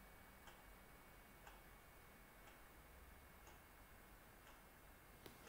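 Near silence: room tone with a faint clock ticking once a second.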